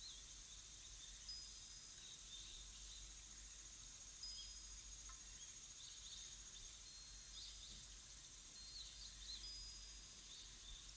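Faint natural background ambience: scattered small, high chirps and a few brief thin whistled notes over a steady hiss.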